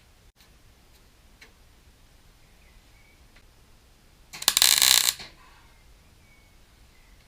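A short burst of MIG welding, about a second of loud crackling sizzle, tacking a filler disc into an old riv-nut hole in a VW bus front panel. Before it, a few faint clicks.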